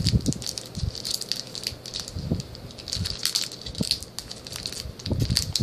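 Foil booster-pack wrapper crinkling and crackling as it is handled and torn open, with a few soft low bumps from handling.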